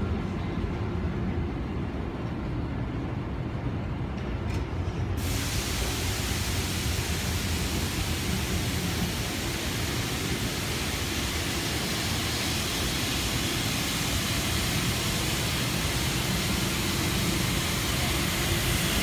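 TriMet MAX light-rail train rolling slowly past at close range: a steady low rumble of steel wheels on rail as the cars go by. A steady hiss comes in suddenly about five seconds in.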